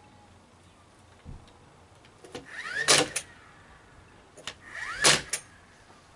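Nail gun driving two nails into timber joists, about two seconds apart, each shot preceded by a short rising motor whine. A softer knock comes about a second in.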